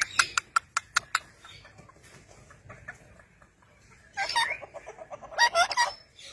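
Parrot vocalising: a quick series of about seven sharp clicks, then two short warbling, clucking calls that bend in pitch, a second or so apart.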